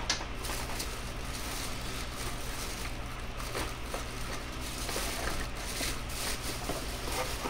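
Quiet room tone: a steady low hum with scattered faint clicks and rustles.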